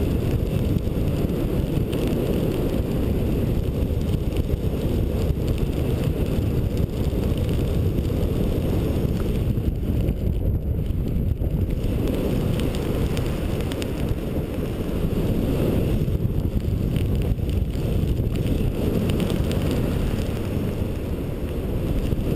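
Wind buffeting an action camera's microphone in paragliding flight: a steady low rumble of rushing air that eases a little now and then.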